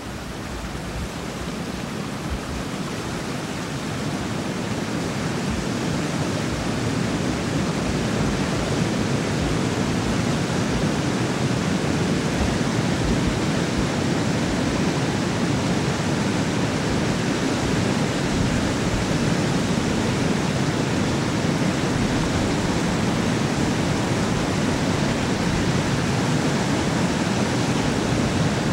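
Water pouring through an open dam spillway and churning in the river below: a steady rush that grows louder over the first several seconds and then holds.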